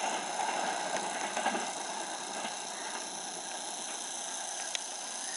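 A passenger train running away into the distance, its wheel and coach noise fading slowly and steadily, with a few faint clicks.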